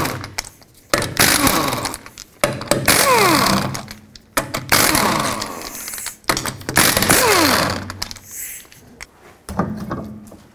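Half-inch impact gun with a 19 mm socket spinning lug nuts off a wheel: about five short bursts of hammering, each trailing off in a falling whine as the motor spins down. A dull knock comes near the end.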